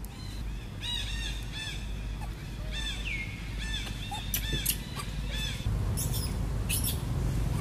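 Short, high-pitched arched chirping calls repeated several times a second, with one longer call that slides down in pitch, stopping a little past halfway; a few sharp clicks follow near the end.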